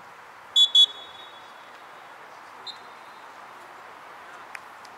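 Referee's whistle: two short shrill blasts in quick succession about half a second in, then one faint short blast near the middle, over steady background noise.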